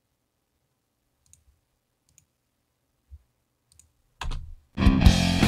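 A few faint mouse clicks, then a rock band's mix starts playing back loudly near the end, just after a brief low burst about four seconds in.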